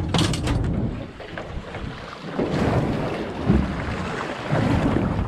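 Wind buffeting the microphone over choppy sea water sloshing against a small boat's hull, with a few sharp knocks at the start.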